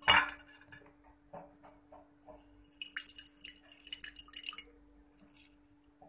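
A sharp clack at the start, then scattered small clicks and, about three seconds in, a spell of spattering and dripping as a halved lemon is squeezed for its juice.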